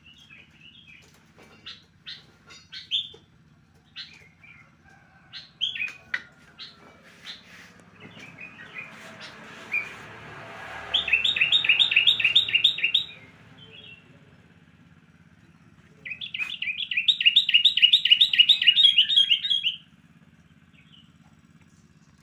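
Small caged songbirds chirping on and off, then two loud, fast trills of repeated chirps, about five a second. The first trill, about eleven seconds in, lasts about two seconds. The second, a few seconds later, lasts about three seconds.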